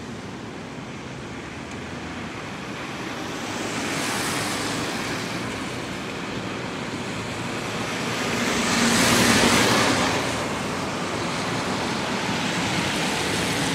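Constant road traffic: a steady rush of tyre and engine noise, swelling as vehicles pass, with the loudest pass about nine seconds in.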